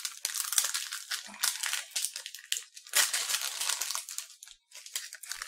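Clear plastic wrapper of a pack of thin rice crackers crinkling in irregular bursts as it is handled.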